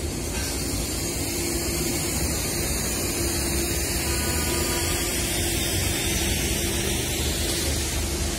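Shunting diesel locomotive on the move on a nearby track: a steady engine drone with a broad, even hiss.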